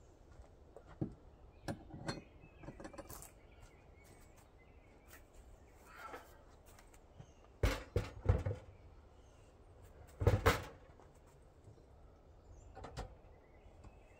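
A handful of scattered knocks and thunks from objects being handled. The loudest come in two clusters, about eight seconds in and again about ten seconds in.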